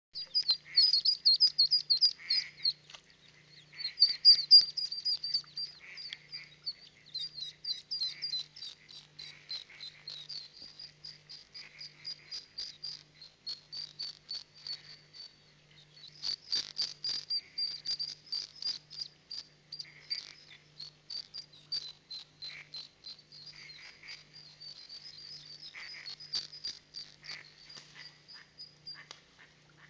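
Mallard ducklings peeping in a rapid, high-pitched chorus, loudest in the first few seconds and again about sixteen seconds in.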